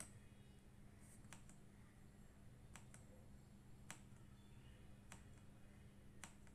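About seven faint, single keypresses on the Zifriend ZA68 mechanical keyboard, irregularly spaced, over a low steady hum.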